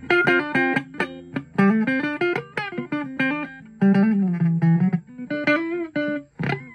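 Les Paul-style electric guitar with Washburn humbucking pickups played with a clean tone: single notes picked in quick succession, with one note bent up and back down a bit past halfway. It shows off the guitar's low, easy action, with notes sounding without choking on the frets.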